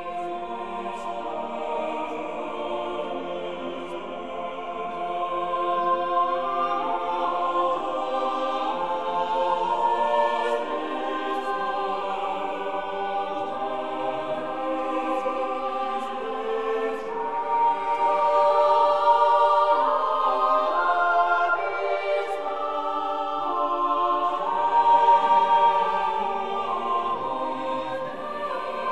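Background choral music: a choir singing long held notes in slow, sustained chords.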